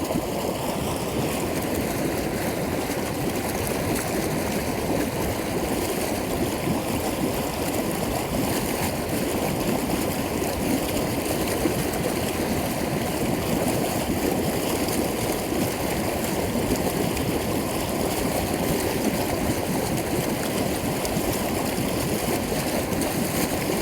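Hot tub air blower running, with air bubbling up through the spa water in a steady rush.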